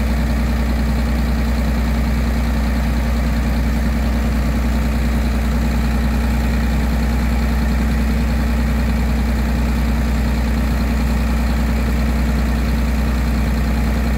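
Engine-driven pond pump running steadily at constant speed with a deep, even hum as it draws down the pond.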